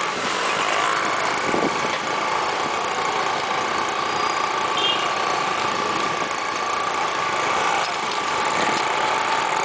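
Steady street-traffic engine noise from auto-rickshaws and a motorcycle running close by, heard from a moving bicycle. A steady whine runs through it and dips slightly in pitch in the second half.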